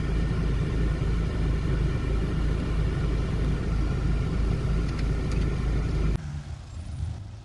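Off-road SUV engines running in a steady low rumble as an SUV climbs a steep dirt slope. The sound drops off suddenly about six seconds in, leaving a fainter rumble.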